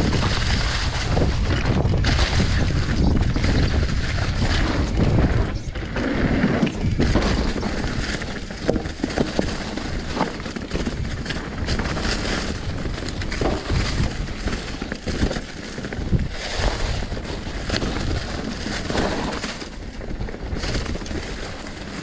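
Mountain bike riding down a rocky singletrack covered in dry leaves: the tyres crunch through the leaves and over rocks, and the bike rattles and knocks over the bumps, with wind rumbling on the microphone.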